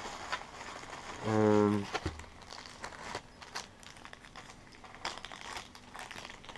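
Plastic crinkling and rustling with small clicks as power adapters and cables are handled. About a second in, a man gives a brief, steady-pitched vocal 'mmm'.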